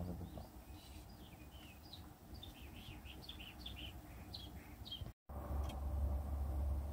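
Small birds chirping, a quick run of short chirps over a low rumble. About five seconds in, the sound drops out for a moment, and after it the low rumble is louder and the chirping has stopped.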